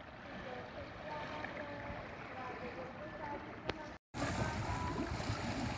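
Sea water splashing and wind on the microphone aboard a small boat, with people's voices. About four seconds in the sound cuts out for a moment, then comes back louder with splashing as a plastic basket is dipped into the sea.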